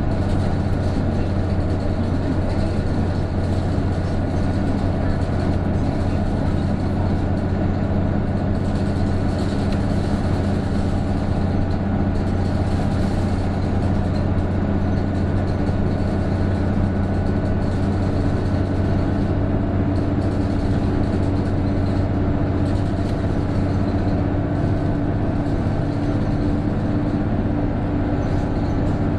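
Isuzu Erga route bus heard from inside while driving, its diesel engine running steadily under load with a thin steady whine above it. The whine is this bus's known abnormal noise, like that of an Aisin automatic gearbox, which comes in from about 1300 rpm once the turbo takes effect.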